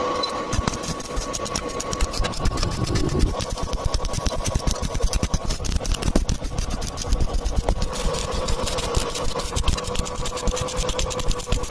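Welding arc crackling and sputtering steadily, a fast even crackle over a steady hum.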